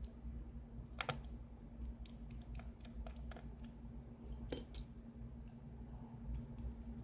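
Scattered light clicks and taps of small metal tweezers and a pry tool working on an opened iPad, the sharpest about a second in and about four and a half seconds in, over a faint steady hum.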